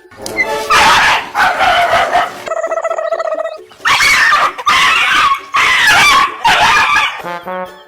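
A dog vocalising loudly in a string of about seven drawn-out, barking calls.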